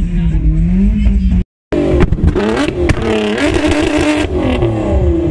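Car engine running with a wavering drone, cut off for a moment about one and a half seconds in, then revved: the pitch rises and falls, with crackles from the exhaust.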